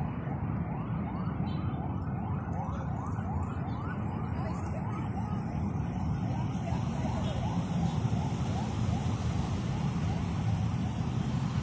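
Emergency-vehicle siren on a rapid yelp: a short rising wail repeating about four times a second, over a steady low rumble of road traffic.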